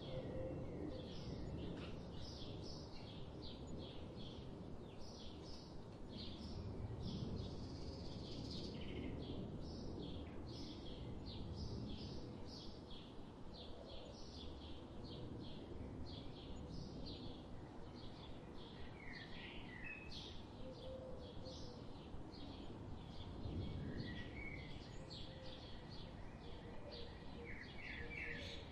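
Birds chirping in a dense chorus of short, quick notes, several a second, with a few lower warbled phrases, over a steady low rumble of background noise.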